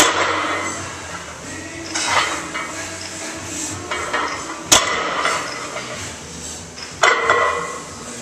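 Loaded barbell clanking during bent-over rows: the iron plates and spring-clip collars knock and rattle on the bar sleeves as the bar is lifted and lowered, three sharp metal clanks (at the start, past the middle and near the end) with softer rattles between.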